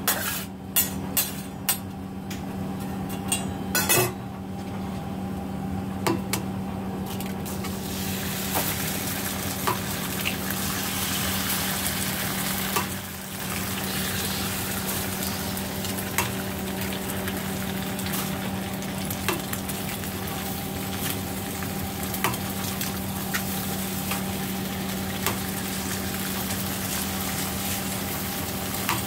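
Chopped thick-cut bacon and eggs frying on a steel flat-top griddle: a metal spatula scrapes and taps on the steel for the first few seconds, then a steady sizzle builds, broken by occasional sharp clicks as eggs are cracked onto the griddle. A steady hum runs underneath.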